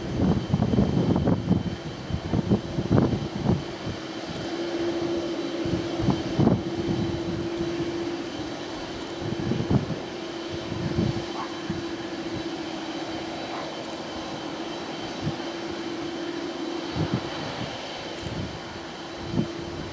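Boeing 747-400 jumbo jet's four turbofan engines running at low power as it taxis, a steady jet hum and whine. Gusty low rumbles come and go over it, heaviest in the first few seconds.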